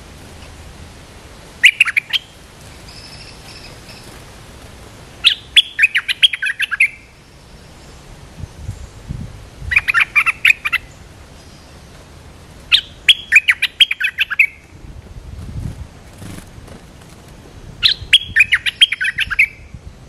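Merbah lekir bulbul singing in five short bursts of quick, chattering notes, a few seconds apart.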